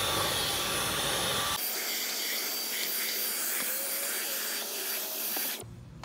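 Dyson V11 cordless stick vacuum running with a small brush attachment: a steady rush of air with a thin high motor whine, cutting off near the end.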